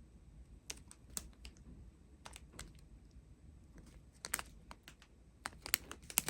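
Irregular light clicks and taps from handling small plastic bags of resin diamond-painting drills, in uneven clusters with short gaps.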